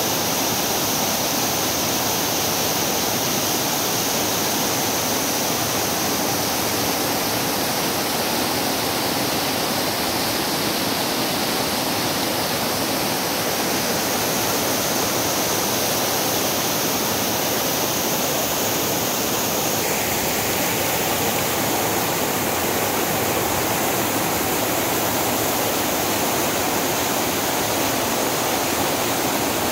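A rain-swollen mountain waterfall cascading over boulders: a steady, even rush of falling water, changing slightly in tone about two-thirds of the way through.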